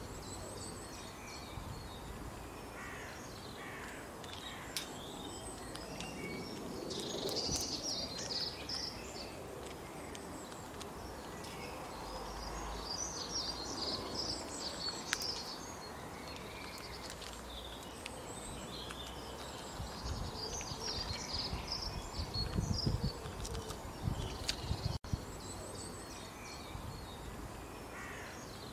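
Small birds chirping and twittering in several bursts over a steady outdoor background hiss, with a few low rumbles of wind on the microphone near the end.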